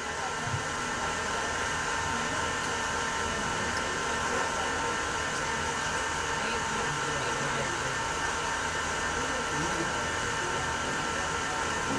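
Steady whirring machine noise with a constant high hum.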